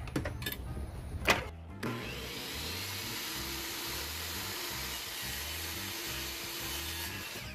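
DeWalt miter saw motor running steadily for about five seconds as the blade is brought down to cut a length of pressed-cardboard quarter round at a 44-degree miter. It is preceded by a few clicks and a sharp knock about a second in.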